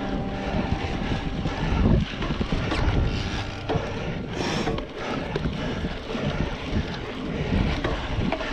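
Wind buffeting the microphone with a rumble of tyres on the trail as a mountain bike is ridden.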